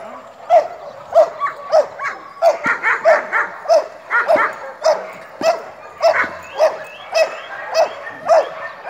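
Belgian Malinois barking repeatedly at a decoy in protection training, about two barks a second, with the barks coming faster for a couple of seconds in the middle.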